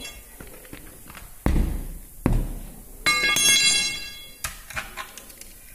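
Tyre lever and steel wheel rim while a large agricultural tyre is forced onto the rim: two heavy thuds, then a metallic clang about three seconds in that rings for over a second.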